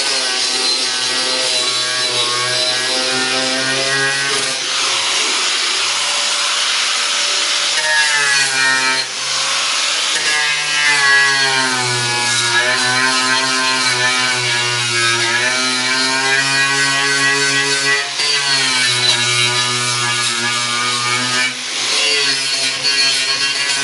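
Angle grinder with a stringer bead (knotted) wire wheel running continuously, scouring heavy rubberized undercoating off car underbody sheet metal down to bare steel. A steady motor whine sits over a harsh hiss of wire on metal, and the pitch sags and recovers several times as the wheel is pressed into the work.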